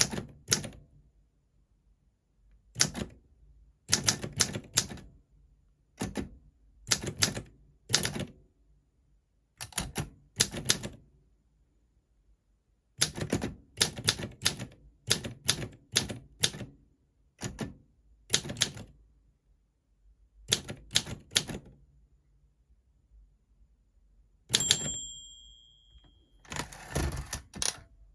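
Olympia SM4 manual portable typewriter being typed on: irregular key strikes in short clusters with pauses between. Near the end the margin bell rings once, warning of the line's end, and a carriage return follows with a quick run of ratcheting clicks.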